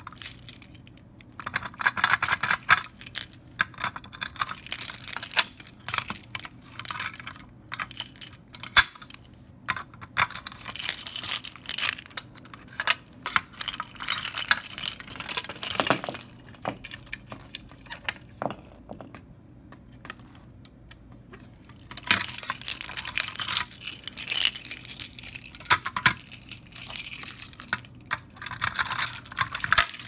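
A bunch of keys jangling while a key turns in the lock of a red plastic fire alarm pull station and its hinged front is opened and handled, with sharp clicks and rattles of the housing. It goes quieter for a few seconds about two-thirds of the way through.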